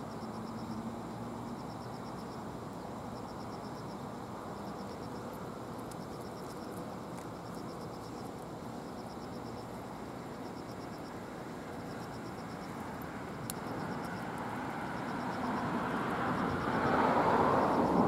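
Open-air ambience with a steady low rush, over which an insect's short buzzing trill repeats about every second and a half. Near the end a louder rushing noise swells up and becomes the loudest sound.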